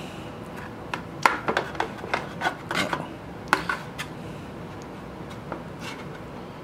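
Kitchen knife slicing through a baked meatloaf and scraping and clicking against the bottom of a metal baking pan. The scrapes and clicks come in a quick run between about one and four seconds in, then it goes quieter.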